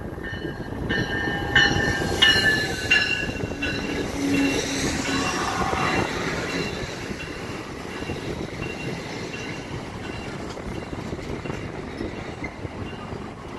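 AMT bilevel commuter train pulling into the station, its wheels and brakes squealing with high, steady tones and a few sharp clanks in the first three seconds. The rail rumble then eases off as the train slows almost to a stop.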